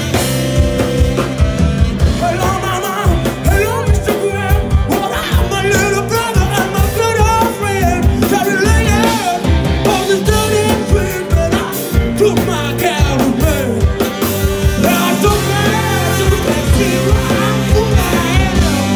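Live rock band playing loud: drum kit and bass under a wavering lead melody.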